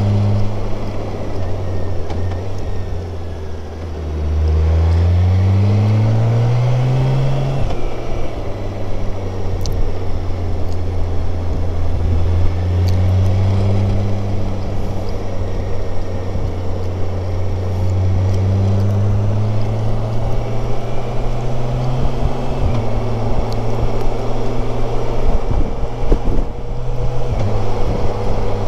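BMW K1600GTL's inline-six engine running under way, with wind rush over the helmet. About four seconds in the revs drop, then climb steadily for a few seconds as the bike accelerates; later they rise slowly and fall back sharply about three quarters of the way through.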